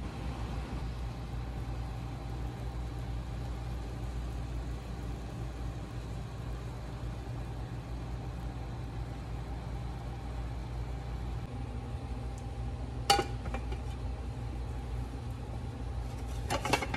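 Steady low hum with the faint frying of a potato tortilla in oil in a pan. There is a sharp clink about 13 seconds in, and a clatter near the end as a plate is set over the pan for flipping.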